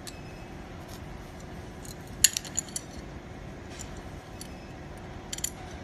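Sharp metallic clicks and clinks from a 2.25-inch steel exhaust clamp as its nuts are loosened off. The loudest click comes a little over two seconds in, with a few lighter ones after it.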